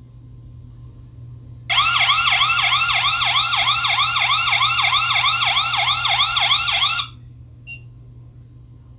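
Video doorbell's tamper alarm going off: a loud electronic siren of quick warbling chirps, about four a second, sounding for about five seconds and then stopping. The doorbell has been slid off its mounting bracket.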